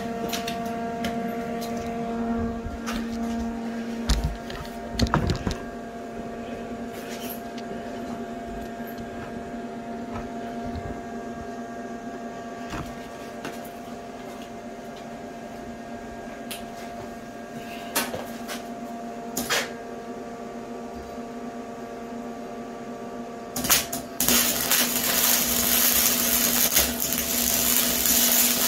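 A steady hum with a few clicks and knocks. About 24 seconds in, a Lincoln wire-feed welder strikes an arc on the steel tube frame of a shopping cart, and a loud, continuous crackling sizzle runs to the end.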